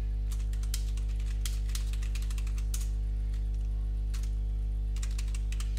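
Typing on a computer keyboard: quick runs of key clicks with a short pause in the middle, as a user name is entered. Under it runs a steady low electrical hum.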